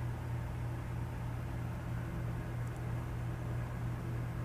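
Steady low hum with an even fan-like hiss from running computer equipment, unchanging throughout.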